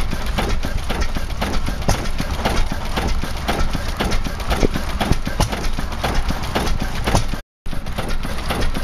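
Crossley horizontal stationary diesel engine running steadily, with an even beat of about three knocks a second over a low rumble. The sound cuts out for a moment near the end.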